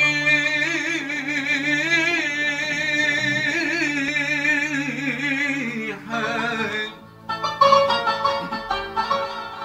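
Arabic-style music: a long wavering melody with strong vibrato over a steady low drone, breaking into shorter phrases about six seconds in.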